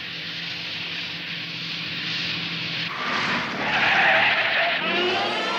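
Car sound effect: an engine running with a steady hum, then from about three seconds in a louder screech of tyres skidding as the car brakes to a stop.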